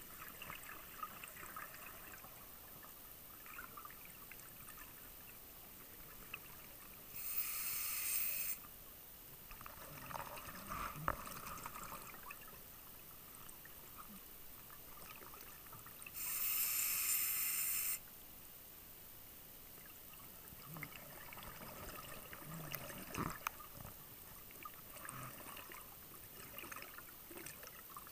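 Scuba regulator exhalation: a diver's exhaled bubbles rush out in two breaths about nine seconds apart, each lasting a second or two. Faint crackling and scattered clicks fill the gaps between breaths.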